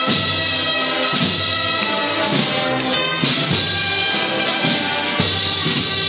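Instrumental music playing steadily, with sustained notes that change about every second.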